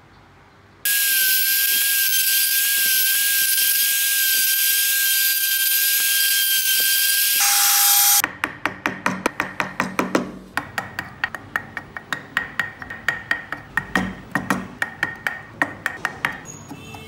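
A trim router's motor runs with a steady high-pitched whine for about seven seconds while cutting spoke openings in turned wooden wheels, dropping in pitch just before it stops. Then come quick, even, sharp taps of a carving chisel working the wood, about six a second.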